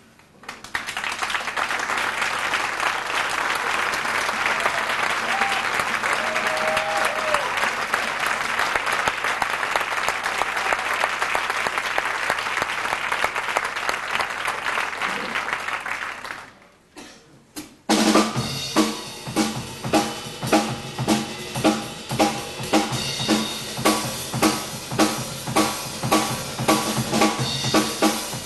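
Audience applauding for about sixteen seconds, then a short hush. A big band starts a piece with the drum kit leading on a steady, accented beat.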